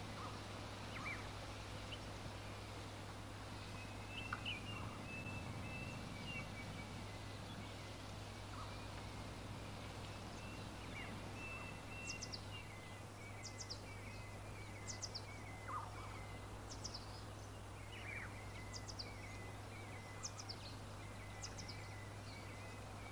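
Faint outdoor ambience of birds calling: scattered chirps and warbling notes, then from about halfway a run of short, high, downslurred notes repeated every second or so. A steady low hum lies underneath throughout.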